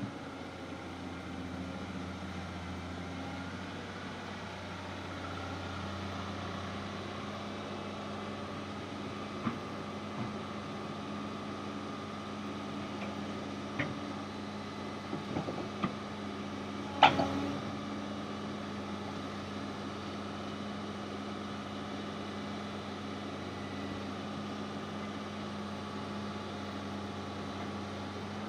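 Kobelco excavator's diesel engine running steadily, with a few knocks, the loudest a little past halfway.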